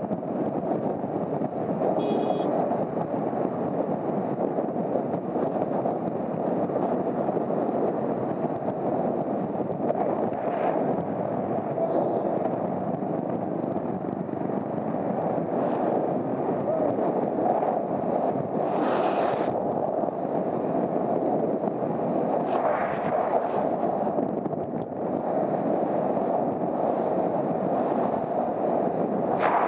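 Riding noise from a Honda CBR250R at speed: a steady rush of wind over the microphone, with a few brief sharper sounds on top.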